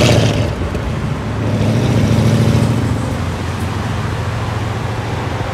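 Shelby Mustang Super Snake Speedster's V8 engine running alongside, a steady low note over road noise that grows louder about a second and a half in, then eases slightly.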